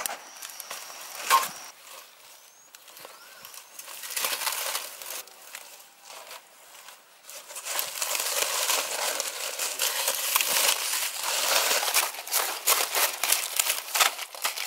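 A sharp knock about a second in. Then, from about eight seconds, aluminium foil crinkling and tearing in a dense, irregular crackle as it is peeled open by hand from around a whole fish cooked in it.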